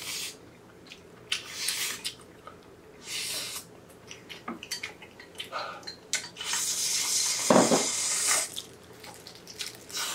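Cold spicy bibim-myeon noodles being slurped in several wet sucks, the longest lasting about two seconds near the end. Short clicks of chopsticks on bowls come in between.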